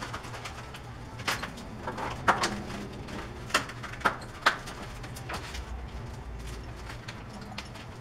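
Packing material being pulled off a new bicycle by hand: crinkling plastic and paper wrap with scattered sharp crackles and snaps, the loudest cluster in the middle, over a steady low hum.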